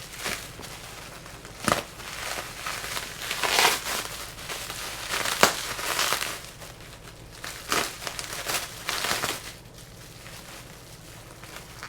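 Packing material being crinkled and pulled off by hand while unwrapping a returned drone motor: irregular rustling with sharp crackles, dying down near the end.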